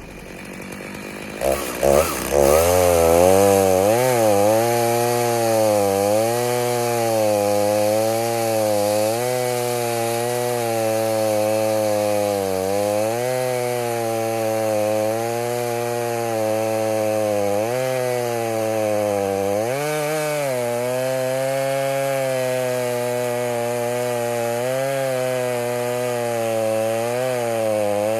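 Stihl MS 290 two-stroke chainsaw starting about two seconds in, then running hard, its pitch repeatedly dipping and rising as it cuts into a red oak log.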